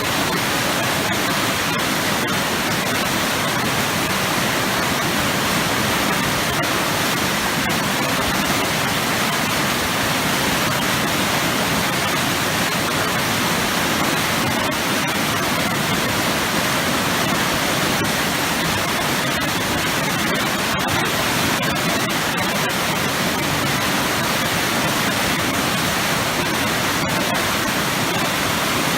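Waterfall crashing into a deep churning pool: a loud, steady rush of falling water with heavy turbulence.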